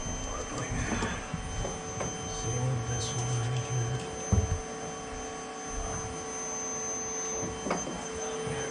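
Steady electrical hum, with light clicks from handling and one short knock about four seconds in.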